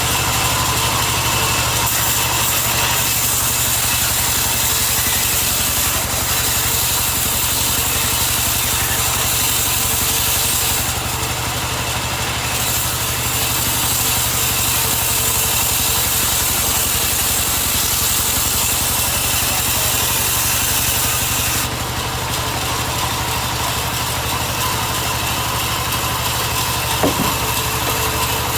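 An engine running steadily with a dense, hissy tone. Its tone shifts abruptly twice, and there is one short knock near the end.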